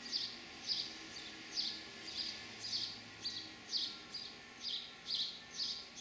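House sparrow chirping repeatedly: short, sharp chirps in an even rhythm, about two a second.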